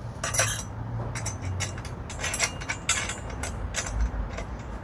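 Light, irregular metallic clicks and rattles of small metal parts being handled and fitted, with a dull knock about four seconds in.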